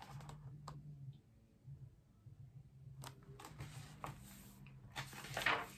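Faint handling of a hardcover picture book: a few soft clicks and taps, then a brief paper rustle near the end as a page is turned. A low steady hum runs underneath.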